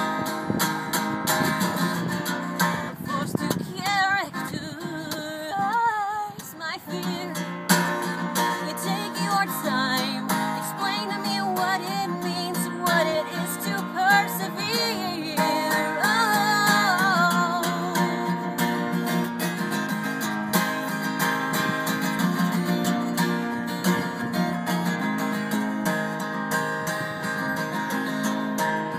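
Takamine cutaway acoustic guitar strummed steadily throughout. A woman sings over it through much of the first half.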